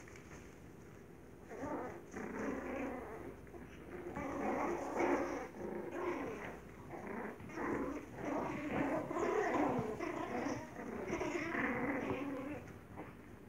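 Yorkshire terrier puppies play-growling as they wrestle over a single toy, in uneven bouts that begin about a second and a half in.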